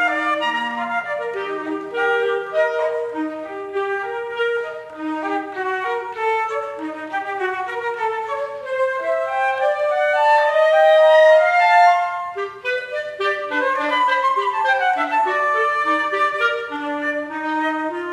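Flute and B-flat clarinet duo playing a lively passage of quick, interweaving notes, with a longer held note in the middle and a quick falling run soon after.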